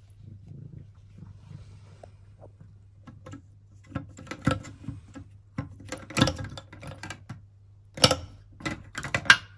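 A cat pawing at a metal pop-up drain stopper in a ceramic washbasin, rattling and clinking it in the drain. The clinks come in three irregular bunches starting about four seconds in, the loudest near the end.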